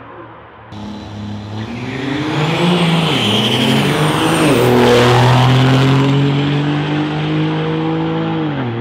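Two diesel drag-racing pickup trucks at full throttle down the strip, engines climbing in pitch with drops at the gear changes and loudest as they pass. The pitch falls near the end as they come off the throttle.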